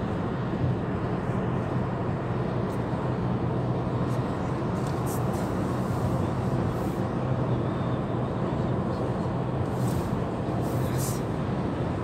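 Steady road and engine noise heard inside a car cabin cruising at motorway speed, a constant low drone with tyre rush above it.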